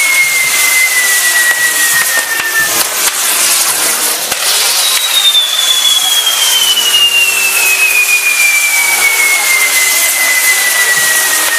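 A burning fireworks castle (castillo) hissing loudly with a few crackles. A long whistling tone falls slowly in pitch and ends about two and a half seconds in. Another starts near five seconds, higher, and glides steadily down until the end.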